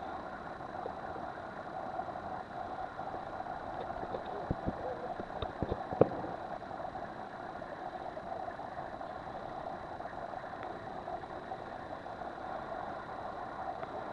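Boat engine running steadily underway. A few short knocks come around the middle, the sharpest and loudest about six seconds in.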